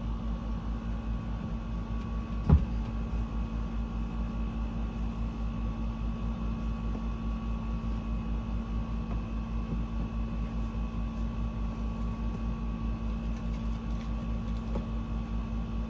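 Steady machine hum made of several fixed tones, its low end pulsing evenly a few times a second. A single sharp click comes about two and a half seconds in.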